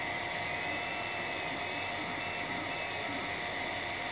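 FDM 3D printer running mid-print: a steady whir from its cooling fans, with short faint whines from the stepper motors as the print head moves.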